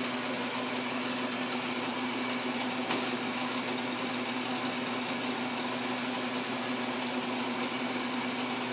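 South Bend 9-inch lathe running at a steady speed, a 3/16-inch drill bit in its chuck drilling into an aluminium pulley. A steady hum with one constant tone throughout.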